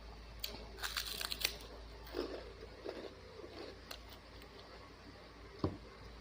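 Close-up eating sounds: a quick run of crisp crunches and crackles about a second in, then softer chewing, and one sharp knock near the end.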